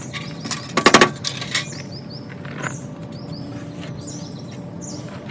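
Small birds chirping over and over, with a brief loud burst of rustling clicks about a second in and a few fainter clicks later.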